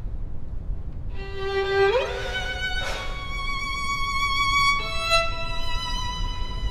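Background music: a slow solo violin line of long held notes, sliding up to a higher note about two seconds in, over a low rumble.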